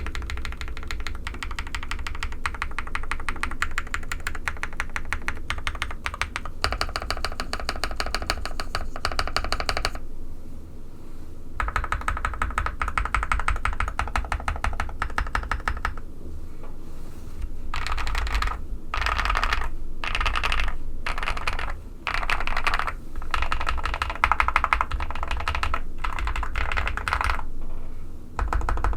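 Custom mechanical keyboard with a POM plate, lubed Qwertyqop Quartz switches and PBT keycaps being typed on. Fast continuous keystrokes pause briefly about ten seconds in, and in the latter half the typing comes in short bursts about a second long.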